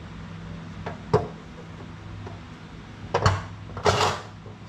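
Thin sheet-metal valley pan handled on a Buick 455 engine block: a light knock about a second in, another sharper knock a little past three seconds, and a short scraping rustle near the end as the pan is lifted off the block.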